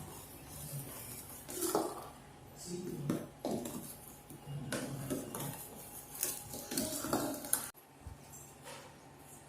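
A utensil scraping and clinking against a mixing bowl in irregular strokes while stirring chocolate cake batter by hand. The sound drops off abruptly about three-quarters of the way through.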